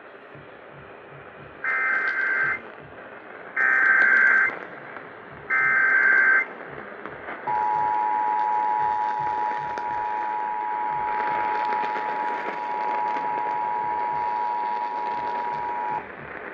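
Emergency Alert System activation heard over AM radio with background hiss. Three short bursts of the SAME digital header tones, about a second each and two seconds apart, encode a tornado warning. Then the two-tone EAS attention signal sounds steadily for about eight seconds and cuts off.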